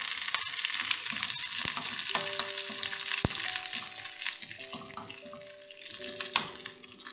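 Curry leaves, dried red chillies and sliced shallots sizzling in hot coconut oil for a tempering, stirred with a metal spoon. The sizzle dies down near the end.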